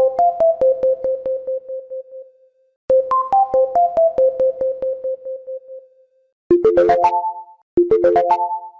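Synthesized phone notification tones. A short electric-piano-like jingle, a few stepping-down notes over a quick run of repeated pulses, plays twice. About six and a half seconds in, a different chime, a fast rising arpeggio, follows twice.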